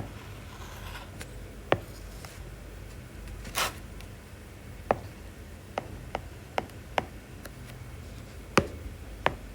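A pen drawing a graph on a writing surface: scattered sharp taps and clicks at irregular intervals, with one short scratchy stroke a few seconds in, over a low steady hum.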